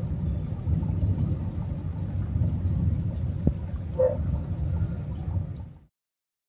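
Low, continuous rumble of thunder that cuts off suddenly about six seconds in.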